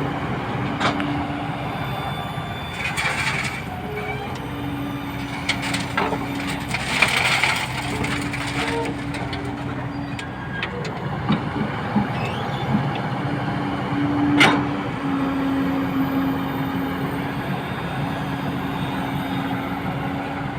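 Kobelco excavator at work: a steady engine drone, with a higher tone that comes and goes in stretches of a second or two. Several sharp cracks and knocks sound over it, the loudest about fourteen seconds in.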